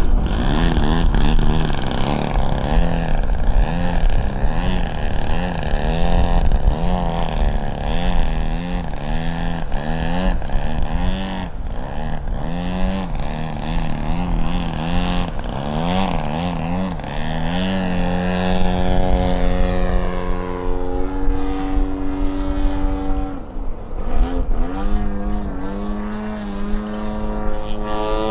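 Radio-controlled aerobatic plane's motor and propeller in a prop-hang hover, the pitch rising and falling about once a second as the throttle is worked to hold the plane on its prop. About two-thirds of the way in the pitch steadies, stepping between held settings as the plane climbs away.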